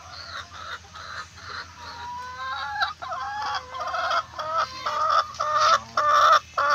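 A flock of brown hens clucking and calling, many short pitched calls overlapping. The calls grow louder and come faster from about two seconds in, loudest near the end.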